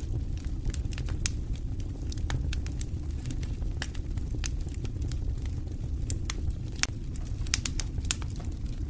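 Fireplace fire burning with a steady low rumble of flames and scattered sharp crackles and pops, several louder pops coming close together near the end.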